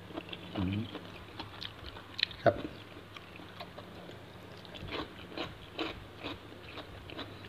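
Close mouth sounds of a person chewing raw shrimp, crisp from a soda soak: wet clicks and crunches, with the sharpest crunch about two and a half seconds in and a run of chewing strokes, about two a second, later on.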